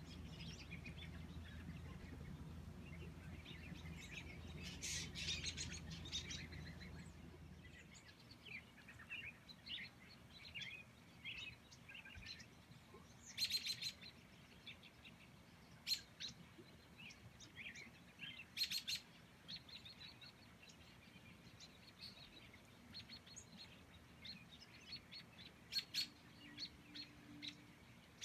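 Small birds chirping, with scattered short high calls and a few louder ones in the middle. A faint low hum underneath stops about eight seconds in.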